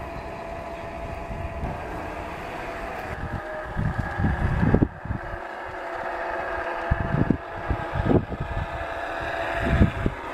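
Steady mechanical hum of a running motor, with deep gusts of wind buffeting the microphone several times.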